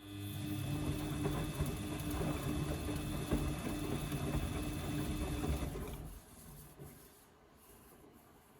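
Washing machine's brushed motor running with a hum and irregular crackling. It starts suddenly, cuts off about six seconds in and dies away over the next second. The crackle is the suspected fault: worn carbon brushes, or the motor itself going bad.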